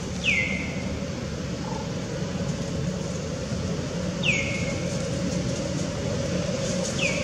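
A bird's short whistled call, falling in pitch and then levelling off, given three times a few seconds apart over a steady low background hum.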